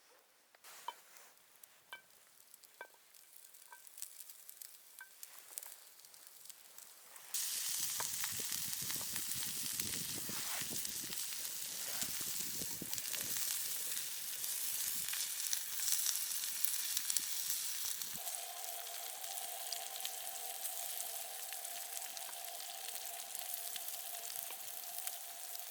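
Food frying in a hot pan: faint ticks and clicks at first, then a loud sizzle starts suddenly about seven seconds in and keeps on. A steady tone joins the sizzle about eighteen seconds in.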